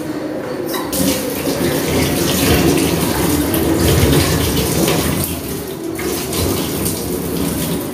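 Kitchen tap running into a sink while tomatoes and onions are rinsed under it. The water starts about a second in and stops near the end.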